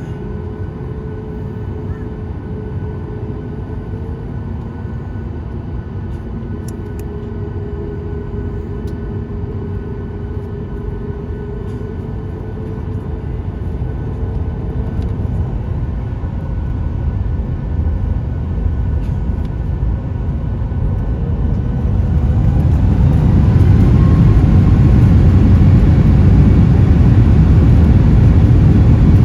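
Boeing 737 MAX 8's CFM LEAP-1B jet engines running with a steady whine, then spooling up from about halfway through. By about two-thirds of the way through they reach a much louder, deep rushing roar as takeoff thrust is set.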